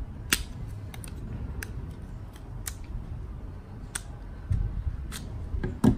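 Scattered sharp plastic clicks, about seven spread over six seconds, as a GoPro Hero 7 action camera and its mount are handled.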